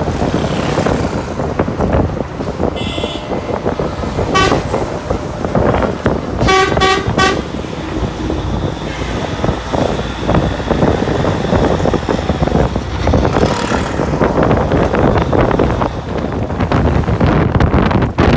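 Wind noise buffeting the microphone, with short vehicle-horn toots over it: single toots about three and four and a half seconds in, then three quick toots around seven seconds.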